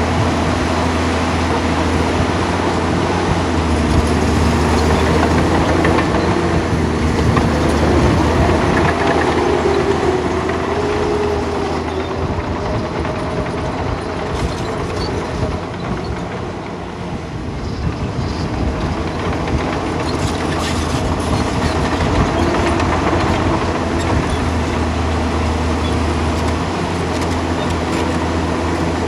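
Bulldozer's diesel engine running steadily, a low drone with a wavering whine over it, easing off slightly about halfway through.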